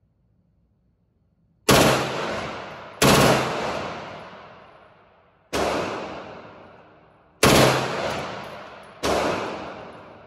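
9mm H&K MP5K submachine gun firing five reports, the first nearly two seconds in, spaced about one and a half to two and a half seconds apart. Each report rings on in the indoor range's echo before the next.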